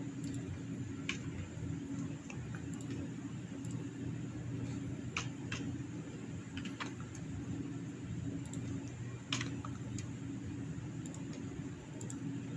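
A handful of short computer-mouse clicks over a steady low machine hum.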